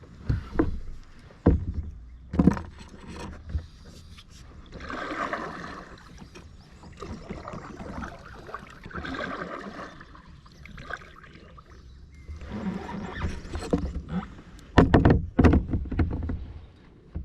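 Knocks and bumps against a kayak hull, with swishes of water in between: sounds of moving about and paddling in a kayak. A few single knocks come in the first few seconds, and a cluster of louder thumps comes near the end.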